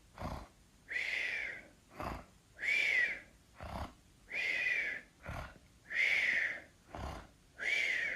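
Cartoon snoring sound effect repeating about five times: each snore is a short low snort followed by a longer breath with a whistle that rises and falls, about every second and a half.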